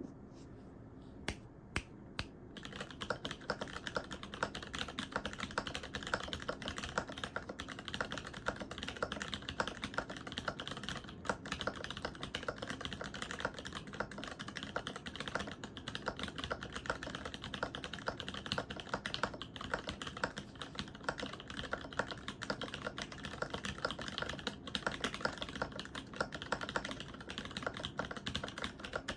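Typing on a top-mount Alice-layout mechanical keyboard with lubed, filmed Cherry MX HG Brown tactile switches, 5052 aluminium plate and PBT keycaps on a deskmat. A few single keystrokes come first, then about two seconds in steady, fast typing sets in.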